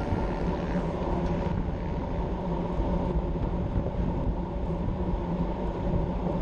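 Wind rumble over an action camera's microphone on a road bike moving at about 50 km/h, mixed with road noise.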